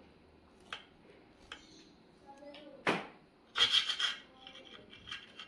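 Kitchen knife cutting through a baked loaf cake: the crust rasps under the blade, with a few sharp clicks and a louder burst of scraping a little after three and a half seconds as the blade reaches the slate serving board.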